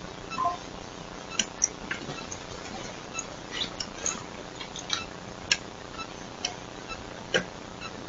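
Small metal clicks and clinks at irregular intervals, about a dozen: lock-picking or entry tools working a house door lock.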